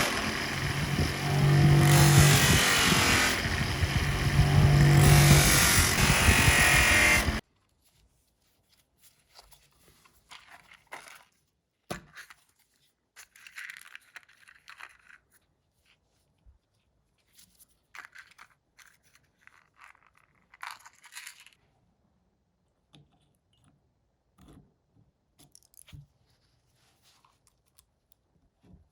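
A power tool runs with a hum that swells and fades every couple of seconds, then cuts off abruptly about seven seconds in. After that come faint, scattered small scrapes and clicks of parts being handled.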